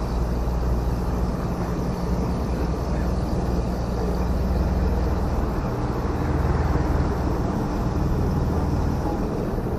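A steady, low mechanical hum with an even wash of outdoor noise, like an engine or machinery running continuously close by.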